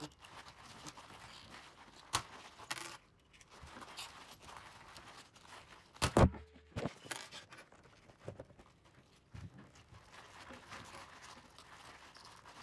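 Hand riveter being squeezed over and over, with a run of sharp clicks and clacks from its handles and jaws, and one loud crack about six seconds in as a pop rivet's mandrel snaps off.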